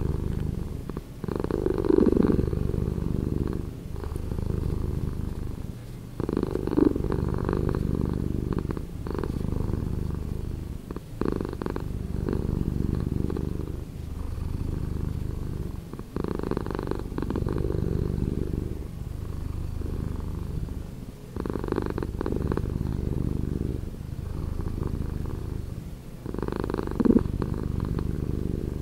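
Domestic cat purring, slowed down: a continuous low rumble that swells and eases in cycles every couple of seconds, following the cat's breaths.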